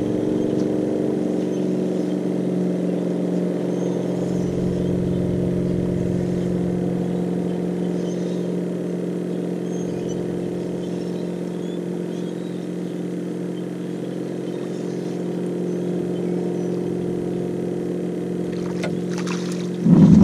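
Outboard motor idling steadily with a low hum. Near the end come sudden loud splashing and knocking as the hooked fish thrashes at the side of the boat.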